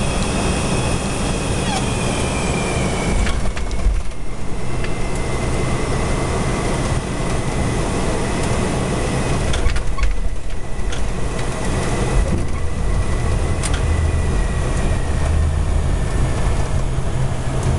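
Steady roar of airflow and engine noise inside a KC-135 cockpit in flight, with a low rumble and a thin high whine that slowly falls in pitch. A few faint clicks come through.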